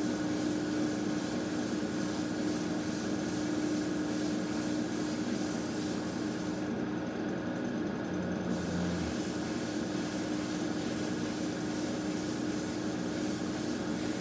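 Trigger airbrush (Mr Hobby PS-290 with fan cap) hissing steadily as it sprays Mr Surfacer 1000 primer in a light dust coat, with a break of about a second and a half around the middle when the trigger is let off, over a constant low hum.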